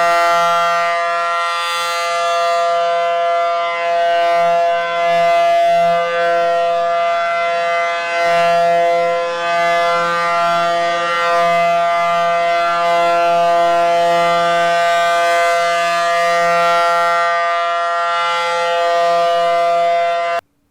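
Single-sided rotating Model 500 air raid siren sounding a steady, loud, high-pitched chord-like wail. Its loudness swells and dips as the horn turns toward and away from the listener, with small modulations in the tone. It cuts off abruptly just before the end.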